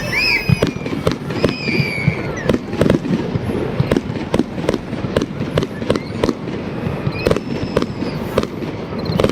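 Fireworks going off in quick, irregular succession: sharp bangs and cracks a few times a second over a low rumble.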